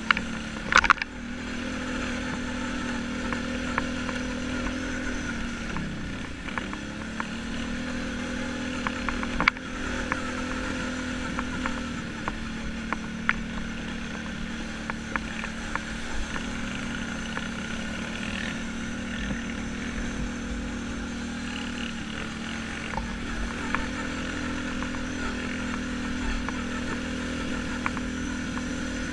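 ATV engine running at a fairly steady speed under way, its pitch dipping briefly about six seconds in, with sharp knocks and rattles from the machine jolting over the rough trail, the loudest about a second in and again near ten seconds.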